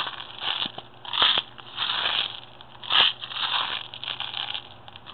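BB pellets rattling inside a small capped metal pipe cannon as it is shaken by hand, in repeated uneven bursts of clicking rattle about one to two a second. The shaking settles the BBs down onto the black powder charge.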